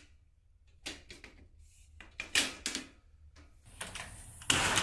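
A claw hammer knocking on the steel frame of a shelving unit: a single knock about a second in, then a quick run of three or four knocks. Near the end comes a louder, longer rattle and clatter as the lever handle and latch of a mesh security screen door are worked.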